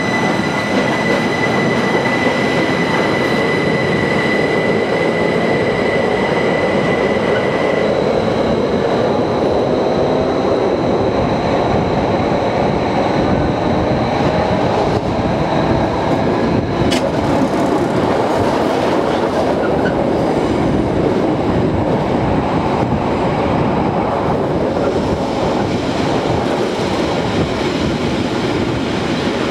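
Metre-gauge Rhaetian Railway train running on its rails, heard from on board: a steady rumble of wheels and rails with a high whine that stops about eight seconds in, and a single sharp click about seventeen seconds in.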